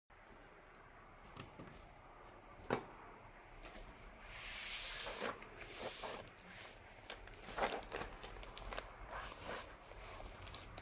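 Plastic keycaps and their packaging being handled: scattered sharp clicks and taps, with a burst of rustling about four seconds in.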